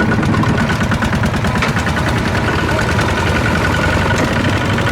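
A walking tractor's single-cylinder diesel engine running steadily with a rapid, even chugging beat.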